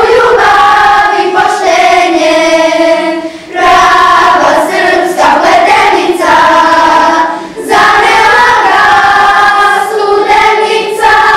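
Children's choir singing together in long held notes, phrase by phrase, with short breaks between phrases about three and a half and seven and a half seconds in.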